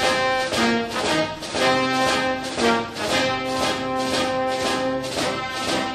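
Background music: held chords over a steady beat.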